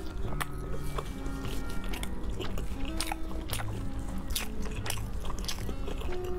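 Close-up eating sounds: biting and chewing of a dark sausage and spicy shredded vegetables, with many irregular sharp crunchy clicks and wet smacks. Background music with held low notes runs underneath.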